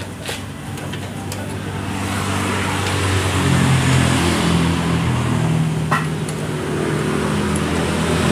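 A motor vehicle engine running, growing louder over the first few seconds and stepping up in pitch partway through. A few light metal clicks of a hand wrench on a bolt can be heard.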